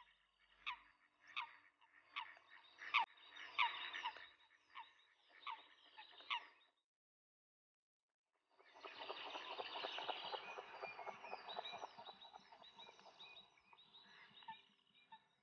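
Eurasian coots calling during a territorial fight, a run of short, sharp calls repeated about every half second. After a pause of about two seconds, a spell of splashing as a coot patters across the water surface in a chase, with single calls again near the end.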